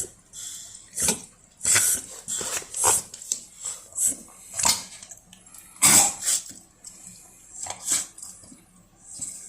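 Dog sneezing over and over, about a dozen sharp, noisy bursts in quick succession with short gaps. The fits sound like retching, as if it is about to vomit, but are only sneezes.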